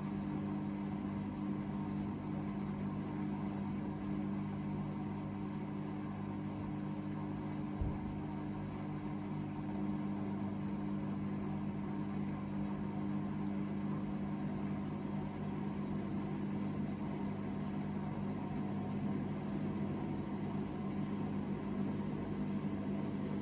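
Hoover VHD 9163 ZI washing machine spinning its drum at a steady speed: a constant hum over a loud rumble, with one brief knock about eight seconds in. The loudness comes from broken drum bearings.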